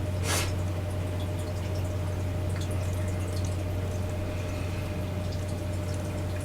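Steady low hum with a faint steady tone above it and scattered faint ticks, broken by a short hiss just after the start.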